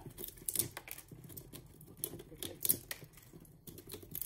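Red squirrel gnawing a large pine-nut cone: a fast, irregular run of crisp crunching clicks as its teeth tear at the woody cone scales.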